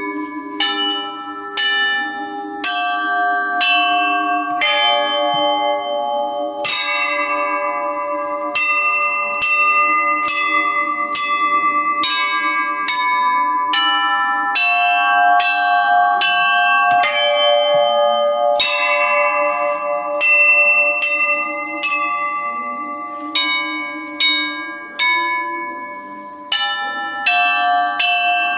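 Russian Orthodox church bells rung by one bell-ringer: several bells of different pitches struck in quick, repeating patterns, a few strokes a second. A low bell tone hums steadily under the first half and fades out about halfway through.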